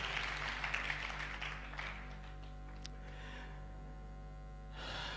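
Congregation applause and scattered clapping dying away over the first two seconds, leaving a steady faint hum with soft sustained tones.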